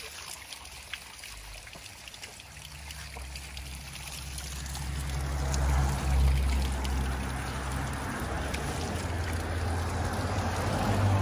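Small mountain spring trickling and splashing down a mossy rock face, getting louder about halfway through, over a low rumble.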